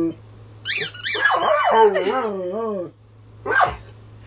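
A squeaky toy squeaked several times in quick succession, then a dog howling along in a wavering, up-and-down pitch for about two seconds. A short, sharp sound follows near the end.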